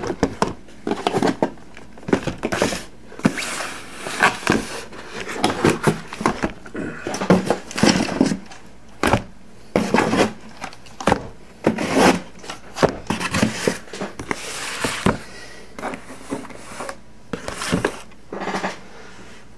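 Wrapped Panini Prizm hockey card packs and their cardboard boxes being handled as the boxes are emptied and the packs stacked: a run of irregular crinkles, taps and rustles that dies down near the end.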